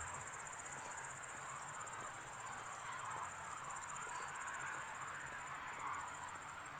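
Crickets chirring steadily, a high-pitched continuous trill, over a faint low background hiss.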